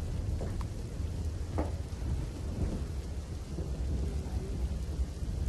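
Steady low rumble of outdoor field ambience over a flooded street, with a few faint knocks early on.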